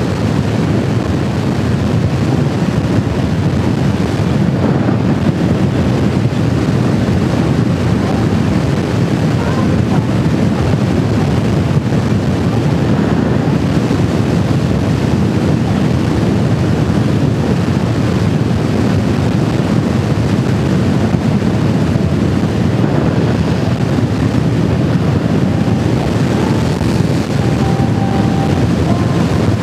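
Steady wind rush on the microphone of a motorcycle at road speed, with engine and road noise underneath.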